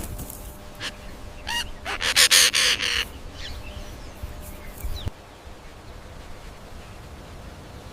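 Animal calls: a few short cries, then a loud harsh rattling call about two seconds in lasting about a second, followed by quieter faint calls.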